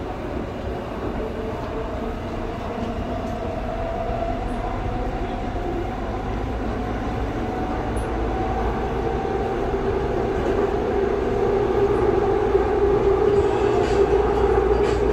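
Seoul Subway Line 2 electric train running, heard from inside the carriage: a steady rumble with a humming tone from the drive, growing louder through the stretch.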